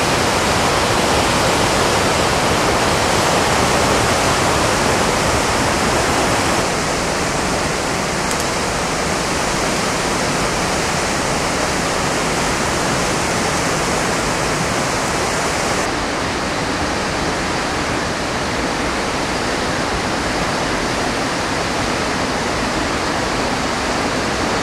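Whitewater rapids of the Chenab River rushing steadily through a rocky gorge. The sound is loud, even and unbroken, and steps down slightly about seven seconds in and again about sixteen seconds in.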